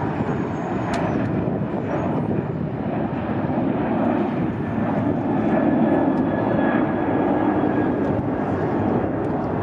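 Jet engines of a Boeing 737 airliner at climb power just after takeoff: a steady roar that swells slightly around the middle, with a faint high whine.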